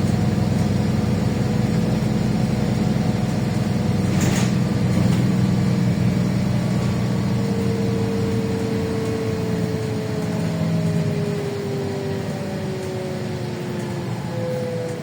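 Interior of a LiAZ 5292.65 city bus on the move, its engine running steadily. There is a short knock about four seconds in, and a whine slowly falls in pitch through the second half.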